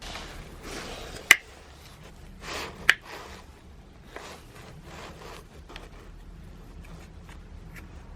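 Hand work on a brush cutter being taken apart: parts and tools rubbing and scraping, with two sharp clicks about a second and three seconds in, then a few light ticks.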